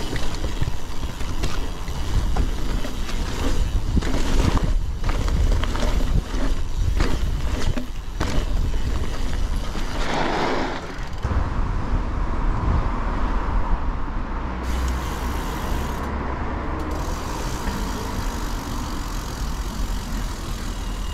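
Steady rumble of travelling on the road, with wind buffeting the camera microphone, and a run of knocks and rattles in the first half. About ten seconds in, a short hiss rises and fades.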